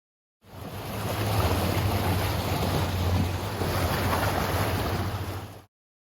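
Tour boat under way on the river: a steady low engine drone under a rush of water and wind noise on the microphone. It comes in about half a second in and cuts off abruptly near the end.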